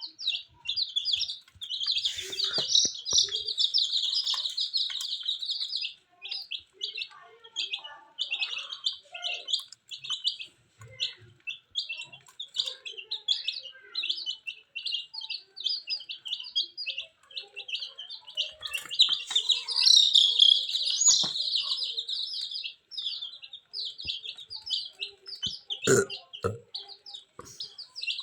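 Baby chicks peeping continuously: a dense stream of quick, high chirps from several birds. Two brief knocks stand out, one a couple of seconds in and one near the end.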